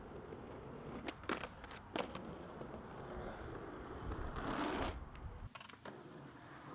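Skateboard wheels rolling over concrete, with a few sharp clacks of the board about a second in and again at two seconds, and a louder rush of rolling before the sound cuts off abruptly near the end.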